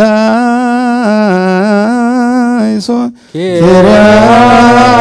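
Ethiopian Orthodox liturgical chant: a man's voice chanting a long melismatic line with a quick wavering on the held notes. It breaks off about three seconds in, and a new, fuller phrase begins.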